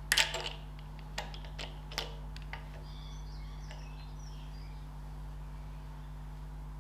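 Metal clinks of a steel ratchet and stud-driving socket being handled: a quick cluster of clicks at the start, then a few single lighter clicks over the next couple of seconds, over a steady low hum.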